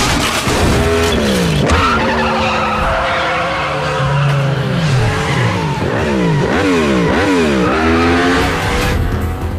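Several motorcycle engines revving hard at speed, their pitch climbing and dropping again and again through gear changes, with quick rises and falls about two thirds of the way in. A skid sounds at the start.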